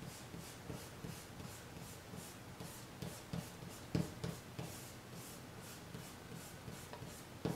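Kneaded eraser scrubbed back and forth across charcoal-covered drawing paper, lifting charcoal to lighten the sky. It makes a soft, rhythmic scratching of about three strokes a second, with a light knock about four seconds in.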